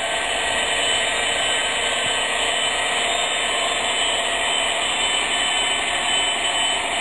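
MTH Proto-Sound 3.0 sound system in an HO-scale EMD SD70M-2 model locomotive, playing the diesel engine sound through its small speaker as the model runs, steady and even.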